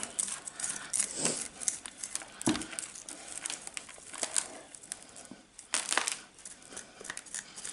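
Bonsai soil and roots of a mulberry's root ball being scraped and pulled loose: irregular scratching, crumbling and tearing, with a few sharp knocks about a second, two and a half and six seconds in.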